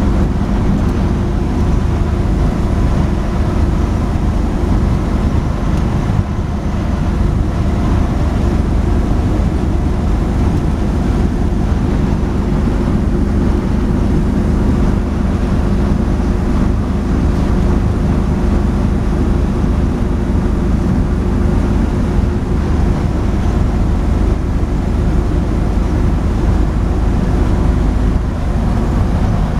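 1962 Chevrolet stepside pickup cruising at freeway speed, heard from inside the cab: a steady engine drone with road and wind noise.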